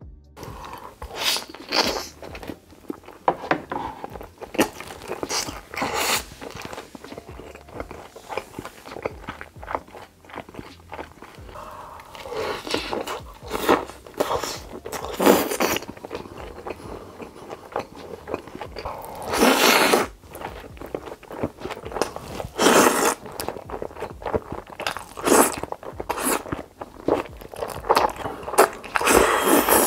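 A man eating close to the microphone: crunchy bites and chewing of sauced fried chicken and battered fried pork, with black bean noodles (jjajangmyeon) slurped into the mouth near the end.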